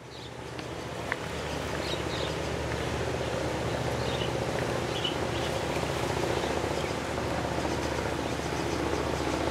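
Shore ambience fading in: the steady low hum of a boat engine running, with a few faint bird chirps and a single click about a second in.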